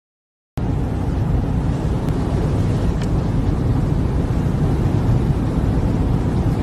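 Steady low roar of wind and tyre noise inside the cabin of an electric Porsche Taycan at very high speed, about 268 km/h, with no engine note. It starts abruptly about half a second in.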